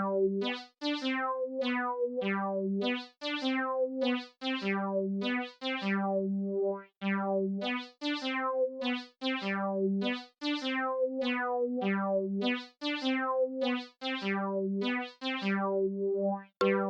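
Background music: a synthesizer keyboard tune of short plucked-sounding notes repeating in a simple, steady pattern.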